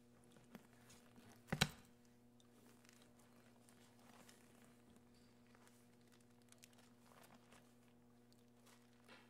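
Near-silent room, broken about one and a half seconds in by a short double thump of a Bible set down on the wooden pulpit under its microphone. Faint page rustles and small clicks follow.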